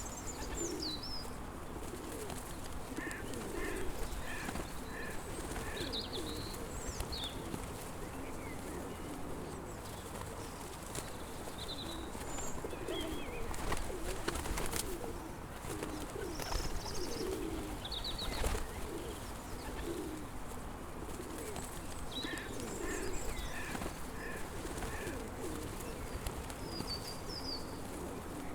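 A flock of pigeons cooing continuously, with other small birds chirping now and then above them.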